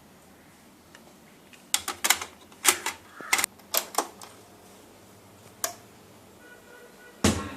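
A series of sharp mechanical clicks and knocks: a quick cluster of them from about two to four seconds in, a single click near six seconds, and a louder knock near the end.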